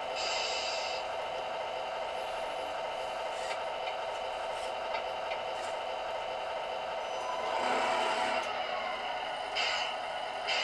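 Truck sound-effect module playing a diesel engine idling through a small speaker, thin with little bass. Short air hisses come at the very start, and again twice near the end.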